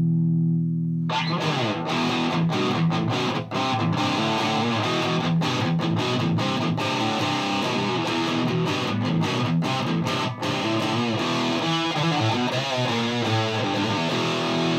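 Distorted electric guitar, a Gibson Les Paul through a Mesa Boogie Dual Rectifier set to its high-gain Modern mode and a Marshall 1960A 4x12 cabinet. A held chord rings out, then about a second in a fast riff of sharply picked notes and chords runs on, stopping at the very end.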